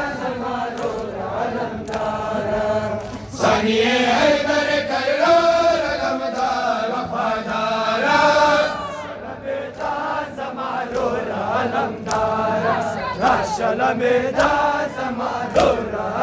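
A large crowd of men chanting a noha together in unison, a mourning lament with a rising and falling melody. Sharp slaps from the chest-beating of matam break through now and then.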